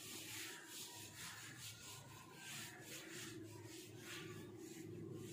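Whiteboard eraser wiped back and forth across the board in quick, faint rubbing strokes, about three a second, clearing marker diagrams.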